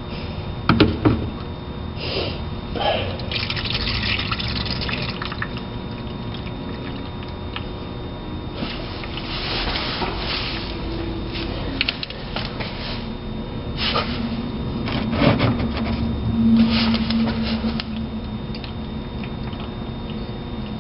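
Motor oil pouring and splattering in uneven surges, with a couple of sharp knocks about a second in.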